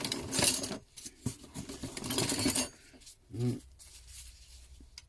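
Old metal hand tools clinking and rattling as they are picked out of a box and handled, in two bursts of clatter in the first three seconds.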